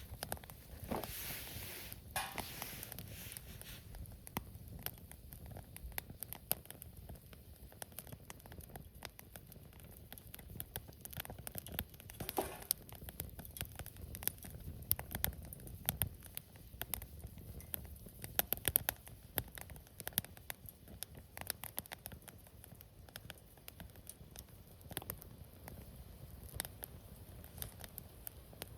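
Wood campfire crackling, with a steady scatter of irregular sharp pops and snaps over a faint low rumble of burning.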